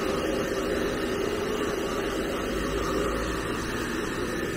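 Handheld hair dryer running steadily, blowing air to dry a wet dog's coat.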